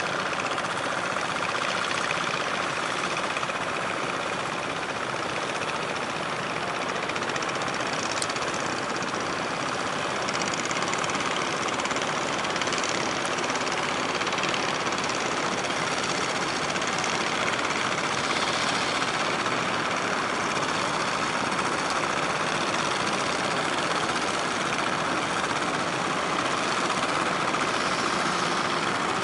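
Fishing boat engines running steadily, an even mechanical drone that holds without a break.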